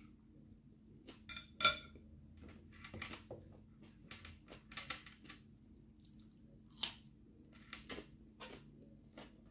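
Close-up eating sounds: irregular crunchy bites and chewing of raw cucumber, with small mouth clicks. There is one bright ringing clink about a second and a half in, as wooden chopsticks are set down against a glass bowl.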